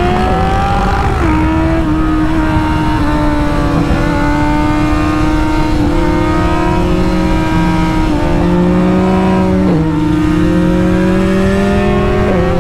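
Kawasaki Z800's inline-four engine running at steady cruising revs on the move, with wind rush on the microphone. The engine note holds mostly level, with brief changes in pitch about a second in, near ten seconds and near the end.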